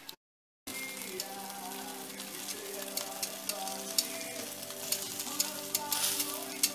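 Chicken pieces sizzling on a charcoal churrasco grill, with fat crackling and sharp pops, starting after a brief silence under a second in.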